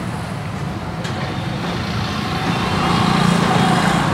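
Street traffic: a motor vehicle's engine running close by, its hum getting louder from about two seconds in. A single light click about a second in.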